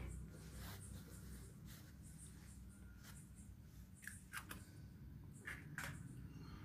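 Hen's eggs being cracked open with a knife over a steel bowl: faint scattered taps and clicks of blade and fingers on shell and of shells put into a steel dish, a few sharper clicks past the middle.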